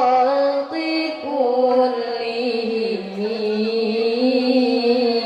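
Two women singing a sholawat (Islamic devotional song) in Arabic, drawing out long ornamented notes that slide and waver in pitch.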